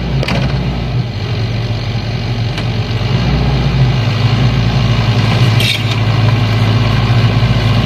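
Sany hydraulic excavator's diesel engine running steadily, getting louder about three seconds in, with a few faint clicks over it.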